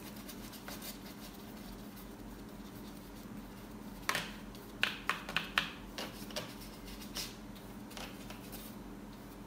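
Paintbrush scratching across canvas in a run of short strokes, most of them between about four and six and a half seconds in, with a few fainter scrapes after.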